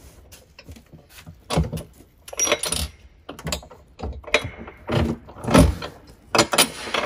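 Irregular metal clinks, knocks and rattles as a pedicure spa chair's steel frame is jostled on its base to line its holes up with upright bolts.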